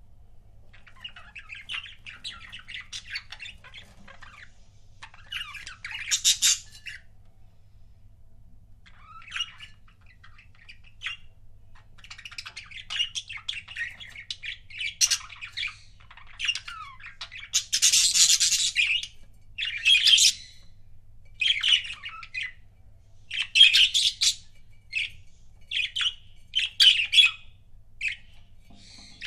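Pet budgerigars chattering: warbling chirps and short harsh squawks in irregular bursts with brief pauses between them. The loudest squawks come about six seconds in and through the second half.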